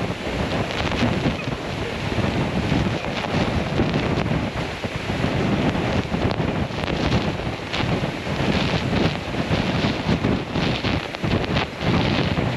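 A waterfall pouring down close by: a dense, continuous rush of falling water, with wind and spray buffeting the microphone so the level keeps surging.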